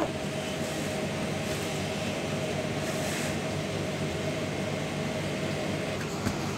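Steady mechanical hum of a room's background, with a faint steady tone that stops about six seconds in.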